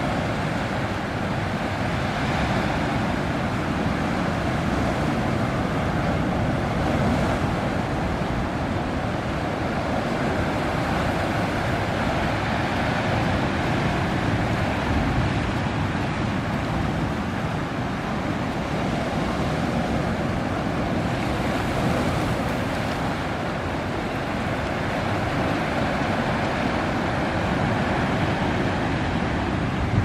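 Steady noise of wind and small waves on open sea water, with wind buffeting the microphone.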